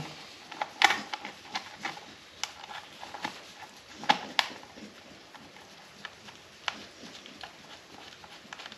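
Irregular clicks and light taps of a hand tool and screws as the screws holding a plastic side cover on an ATV are driven back in, the sharpest clicks a little under a second in and around four seconds in.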